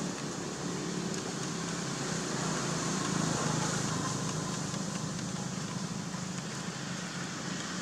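Steady outdoor background noise with a low hum and no distinct sound events.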